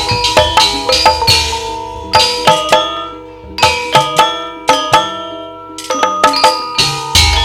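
Music of struck, ringing pitched metal percussion over a drum. The drum drops away after about two seconds, leaving sparser ringing notes, and comes back near the end.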